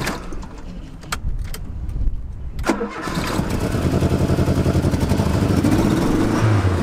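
1987 Dodge Charger Shelby's turbocharged 2.2-litre four-cylinder engine cranking and catching about three seconds in, after a few clicks, then running on fresh fuel with a steady pulsing beat. The car had nearly run out of gas, which the owner takes for the cause of its rough running.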